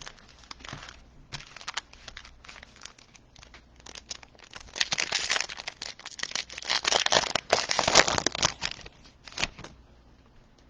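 Wrapper of a trading card pack crinkling and tearing as it is opened. Scattered crackles at first, then a loud stretch of crinkling from about four and a half to eight and a half seconds in, and one more short crinkle near the end.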